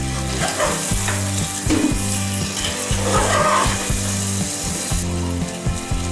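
Mutton curry sizzling in a metal pot as a spatula stirs and scrapes through the meat. The sizzling drops away about five seconds in, over steady background music.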